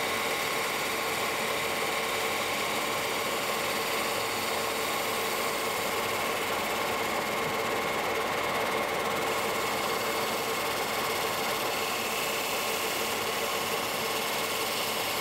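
Large lathe running with a bicycle disc brake caliper clamped on its spinning rotor: a steady mechanical drone with several steady whining tones over a grinding hiss. The brake rubs the disc hard enough to throw sparks, its pads worn down fast.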